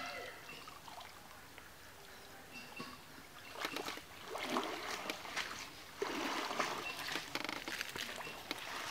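Muddy water splashing and sloshing as hands work below the surface at the bank. It is quiet for the first few seconds, then comes in irregular splashy bursts that grow louder and busier in the last few seconds.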